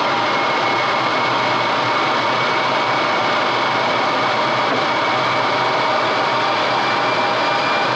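Airflow rushing over the canopy and fuselage of a DG 505 two-seat glider in flight, heard in the cockpit as a loud, steady, jet-like rush with no engine. A faint high whistle slowly rises in pitch through it.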